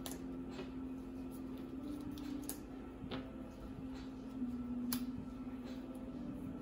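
Trading cards being handled and set down on a cloth playmat: a few sharp short clicks and taps. Under them runs a faint held tone that shifts in pitch now and then.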